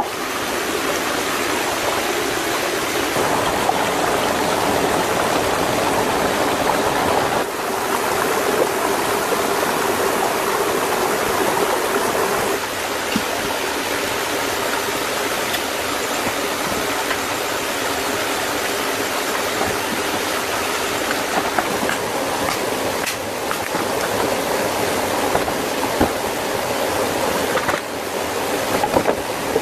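Small rocky stream running and cascading over stones in a steady rush, with a few sharp knocks here and there.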